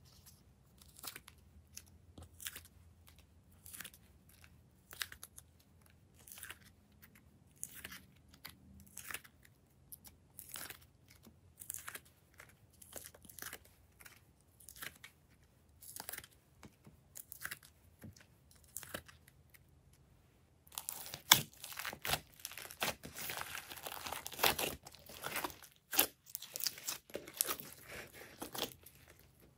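Hands handling slime and soft clay pieces, giving short separate crackly clicks a second or so apart. About two thirds of the way through, denser and louder squishing, crackling and popping begins as a mass of slime is kneaded and squeezed with the fingers.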